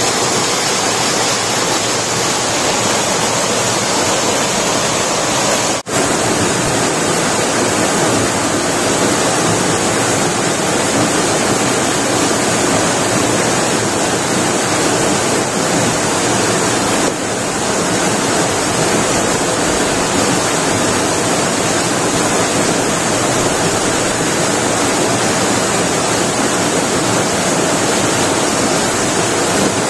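Waterfall pouring: a loud, steady rush of falling water, broken by a momentary drop-out about six seconds in.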